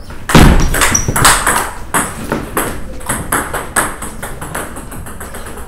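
Table tennis rally: the ball clicking sharply off the paddles and bouncing on the table, several hits a second in quick exchanges.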